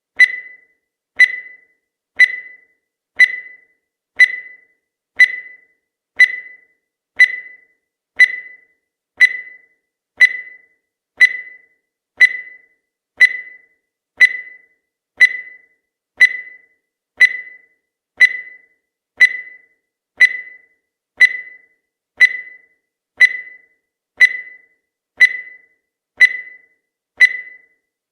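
Countdown timer sound effect: a short, high electronic beep once every second, each one dying away quickly, in a steady unbroken rhythm.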